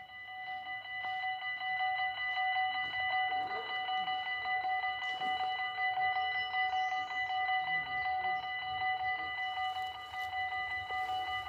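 Dutch level-crossing warning bells ringing rapidly and continuously, a fast run of metallic strikes on fixed bell tones, growing louder over the first couple of seconds. They signal an approaching train while the crossing's lights flash and the barriers come down.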